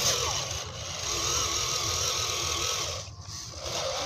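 Electric motor and gearbox of a 1/10 scale RC crawler whining as it drives, the pitch wavering with the throttle, with a short lull about three seconds in.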